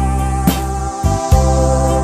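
Instrumental passage of a song: held keyboard notes over a steady bass line, with a drum hit roughly every second.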